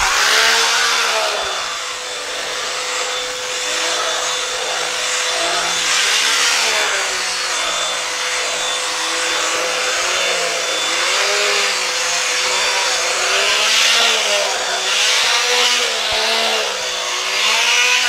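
Hoover WindTunnel MAX bagged upright vacuum running with its air-driven turbo brush tool on the hose, worked back and forth over stair carpet. A loud rush of air with a steady motor whine over a lower hum that rises and falls in pitch again and again as the tool is pushed and pulled.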